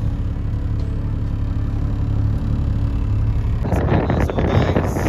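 A sports car's engine idling with a steady low hum. About three and a half seconds in, strong wind starts buffeting the microphone, rumbling and crackling over the engine.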